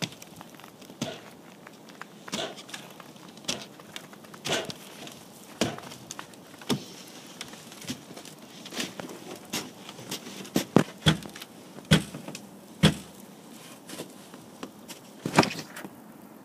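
Footsteps walking through snow, about one a second, then heavier thuds of boots climbing wooden porch steps, with one louder thump near the end.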